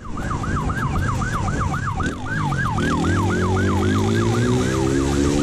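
Police motorcycle siren in a rapid yelp, about four to five sweeps a second. About halfway through, a motorcycle engine revs up, its pitch climbing steadily.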